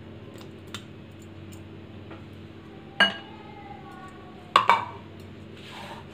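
Clinks on a glass mixing bowl as yogurt is tipped into gram flour: a sharp clink about three seconds in, then a quick double clink about a second and a half later, each ringing briefly. A few faint ticks come before them.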